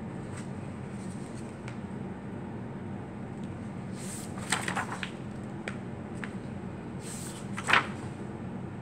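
Pages of a hardcover picture book being turned and flipped: a few quick paper rustles about four seconds in and a louder page flap near the end, over a steady low hum.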